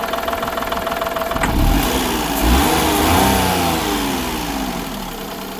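Daihatsu Mira Gino L700S engine idling, then revved a few times from about a second and a half in, its pitch rising and falling back toward idle. A thin steady whine heard at idle cuts off with a click just before the revving. With the air conditioning off, the owner finds it running fairly normally, the abnormal noise gone.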